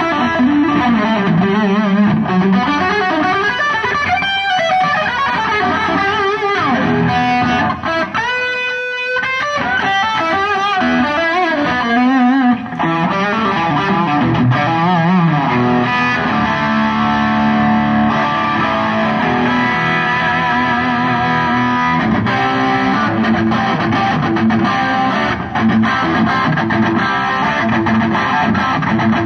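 Electric guitar played through distortion and effects, a continuous run of melodic lines with a brief, rapidly repeating fluttering passage about eight seconds in.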